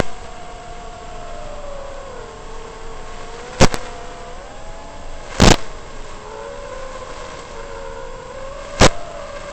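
FPV quadcopter's brushless motors and props whining in flight, several close tones wavering up and down in pitch with the throttle. Four sharp, very loud clicks break in about a second apart to a few seconds apart: near the start, twice in the middle, and near the end.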